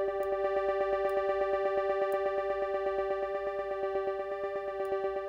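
Wavetable software synth holding one steady bright note, its loudness pulsing rapidly and evenly as Auto Pan's LFO sweeps it left and right.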